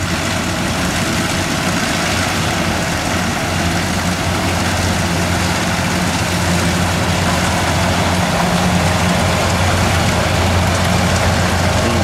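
Kubota rice combine harvester running steadily at working speed, its engine hum mixed with the clatter and rush of the cutter and threshing drum as it harvests rice.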